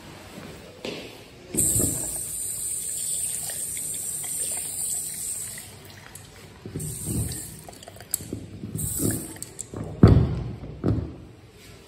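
Tap water running into a sink for a few seconds, then in short bursts, with knocks and bumps of handling; the loudest knock comes about ten seconds in.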